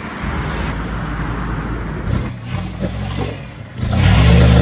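Toyota Surf 4x4's engine running as the vehicle drives. About four seconds in it swells much louder to a steady, low engine note.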